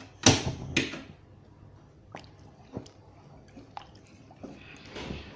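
Water sloshing in a cooking pot as it is handled, loudest in the first second, then a few light clicks and knocks, and another short slosh near the end.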